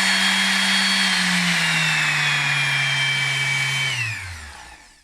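DeWalt DWE6423 random orbit sander running with no load, a steady motor hum and whine. Its pitch drops a step about a second and a half in. Near the end it is switched off and spins down, falling in pitch until it stops.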